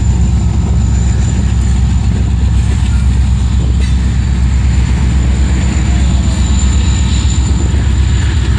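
CSX freight train passing: the diesel locomotives' engines run with a steady low rumble as they pull away, and the covered hopper cars roll by behind them.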